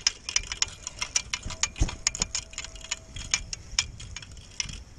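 Spinning reel being cranked, its handle and rotor giving a rapid, uneven ticking as line is wound in, with one low thump a little under two seconds in.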